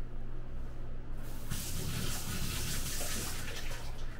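Water running from a sink tap, starting about a second and a half in, as the pH probe is rinsed under it.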